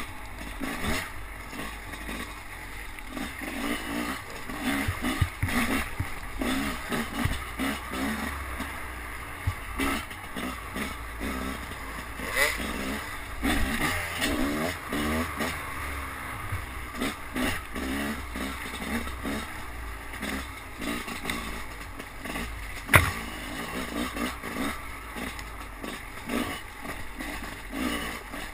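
Enduro motorcycle engine heard close up from a helmet camera, revving up and down over and over as the bike is ridden over rough trail, with wind rush and rattles and knocks from the bike. Late on there is one loud, sharp knock.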